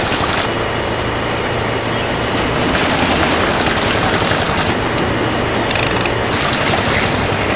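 Small motor-driven model machine running with a continuous rapid rattle.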